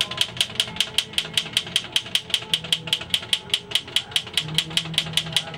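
1941 Underwood typewriter typing in a steady, rapid run of sharp key strikes, about five a second.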